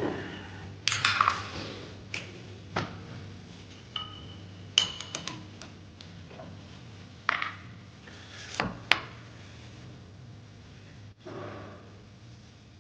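Scattered metallic clinks and knocks of tools and metal parts being handled at a lathe during setup, one ringing briefly like a ping about five seconds in.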